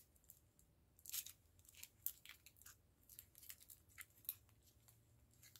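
Faint, scattered clicks and crackles of stiff plastic packaging being handled and pried open by hand.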